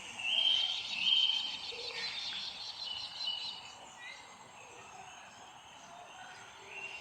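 Songbirds chirping and singing: two loud, clear whistled notes in the first second or so, with rapid high chatter that fades after about four seconds into scattered softer calls over a steady background hiss.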